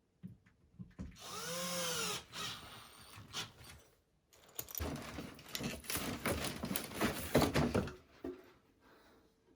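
Power drill running in two bursts while flat-pack drawers are assembled: a short one about a second in whose pitch rises and falls, then a longer, noisier run from about four and a half to eight seconds.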